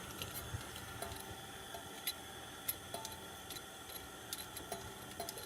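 Faint, scattered light clicks and ticks of small metal parts being handled: a wing nut being turned off its threaded rod and washers lifted off.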